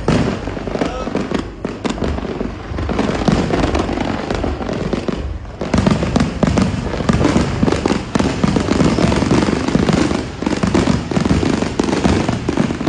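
Fireworks display: a dense, continuous barrage of bursts and crackles that briefly thins about five seconds in, then grows denser.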